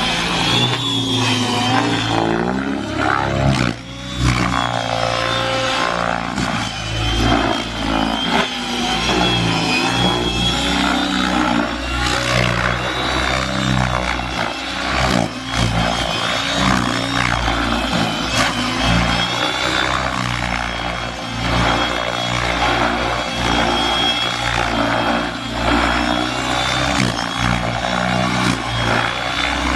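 Align T-Rex 600E electric RC helicopter flying aerobatics: a high, wavering motor-and-gear whine over the swish of the rotor blades, rising and falling in pitch as the pilot throws the helicopter through manoeuvres.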